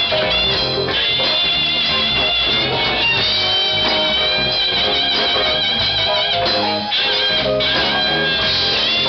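Live band playing a funk number, guitar to the fore, over a steady low bass part.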